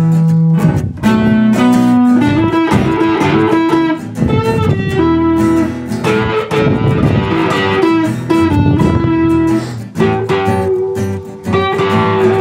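Stratocaster-style electric guitar played through an amplifier in a blues style: held single notes, some of them wavering in pitch, traded with quick runs and strummed chords.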